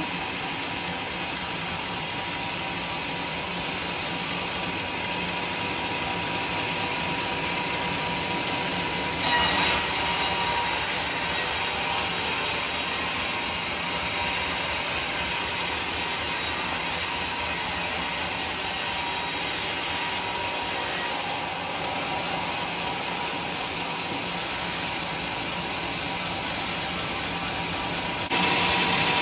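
Sawmill band saw running as its new blade rips lengthwise through a teak beam: a steady cutting noise with a faint steady tone over it. The noise grows louder and brighter about nine seconds in, eases a little later, and jumps up again near the end.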